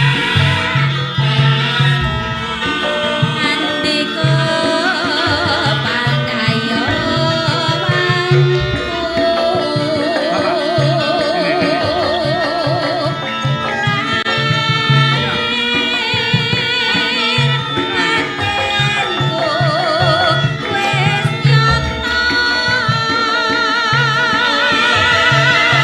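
Javanese gamelan music played by a live band: low hand-drum beats run under a busy ensemble, with a wavering vibrato melody line over it.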